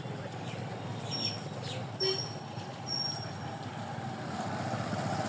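Motor vehicles running steadily, with a few short, high beeps about one, two and three seconds in.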